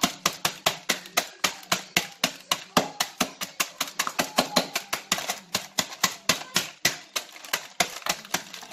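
Rapid, even pounding with a metal-headed mallet on a bag of walnuts lying on a wooden cutting board, about five blows a second, stopping near the end: the walnuts are being crushed to a powder.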